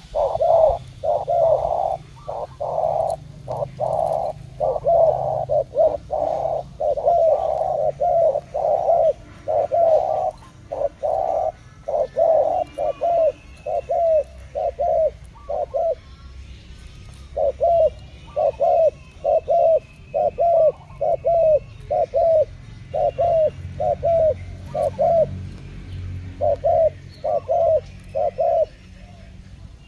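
Spotted doves cooing: a long series of short, repeated coos, about two to three a second, broken by brief pauses about halfway and near the end. Faint high chirps of small birds sound in the background.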